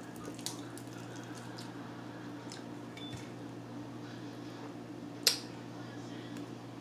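Quiet mealtime handling sounds over a steady low hum: a few faint clicks and one sharp click about five seconds in, from utensils and food being handled while eating fried chicken.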